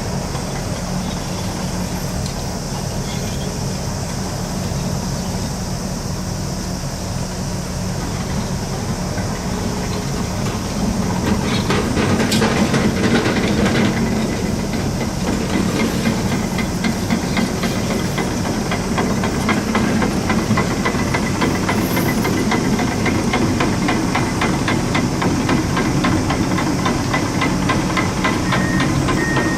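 Heavy construction machine's diesel engine running steadily with a hiss, growing louder about eleven seconds in, with rapid mechanical clatter. Near the end a reversing alarm starts beeping at an even pace.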